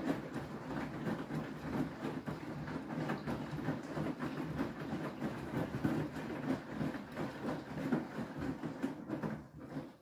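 Beko WTK104121W washing machine drum turning during the wash stage of a Dark Care programme, tumbling wet laundry through water with an uneven, rhythmic sloshing and knocking over the motor's rumble. The sound dies away near the end as the drum slows to a stop.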